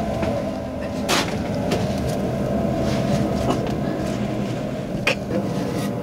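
Firewood being loaded into a wood stove: a sharp knock about a second in and another near the end, with lighter wooden and metal clunks between, over a steady low hum.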